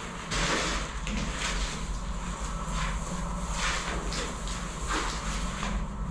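Rustling and brushing of artificial Christmas tree branches as they are handled and fluffed, in irregular bursts, over a steady low hum.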